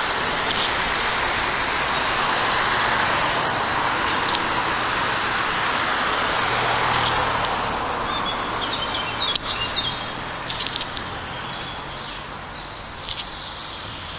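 Street traffic noise swells and then fades over the first half, and small birds then chirp in short, high calls.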